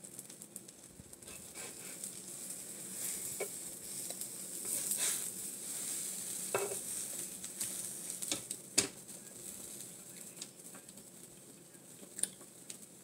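Ham and egg omelet sizzling on a flat-top griddle as plastic spatulas scrape and tap against it while it is folded over. There are scattered sharp clacks, the loudest about two-thirds of the way through.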